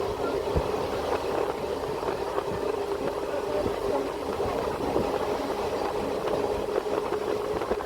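Passenger train running along the track, heard from aboard: a steady rumble with a faint hum and scattered light clicks.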